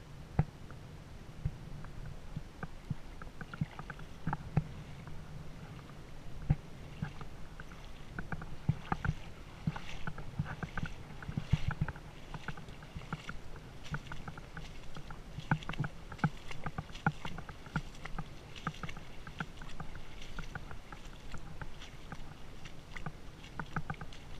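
Wading through shallow water: continual splashing and sloshing with irregular knocks.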